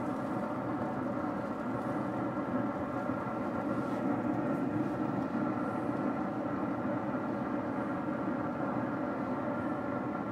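Steady mechanical hum with several held tones, from the running Z Grills pellet grill's fan as it holds cooking temperature.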